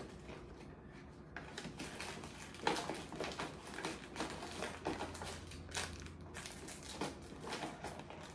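Paper gift bag and tissue paper rustling and crinkling in short, irregular spells, with a few light knocks, as small gifts are packed into the bag.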